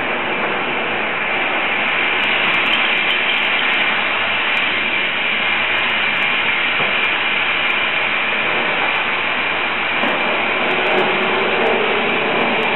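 Glassblower's bench burner running with a steady hiss of its gas flame, a high whistle held in it.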